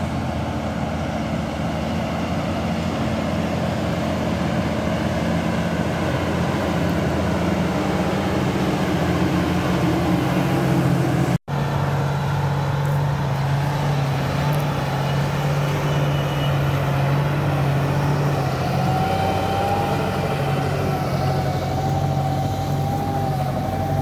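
Tractor diesel engines running steadily under ploughing load. First a Claas Axion 930, then after an abrupt cut about halfway a John Deere 8R-series pulling a reversible mounted plough, its engine tone louder and steadier. A thin higher whine joins in the last few seconds.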